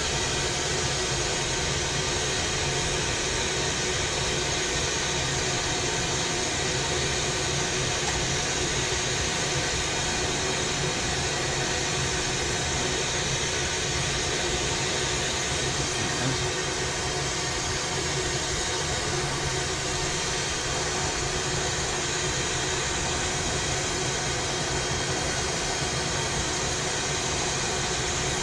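Glassblowing bench torch burning with a steady, even rushing noise that does not change.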